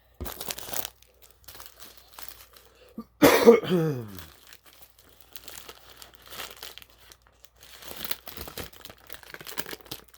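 Paper burger wrapper crinkling and tearing as a Burger King Whopper is unwrapped, in irregular rustles. About three seconds in comes one loud, throaty vocal sound lasting about a second, falling in pitch.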